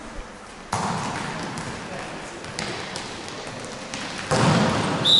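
Echoing sports-hall game noise during a basketball match: voices and shouts, with a few sharp thuds of the ball. The noise gets louder about four seconds in, and a referee's whistle starts right at the very end.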